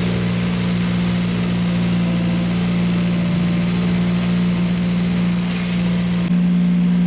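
Race car engine idling steadily. About six seconds in, its low tone shifts abruptly and gets slightly louder.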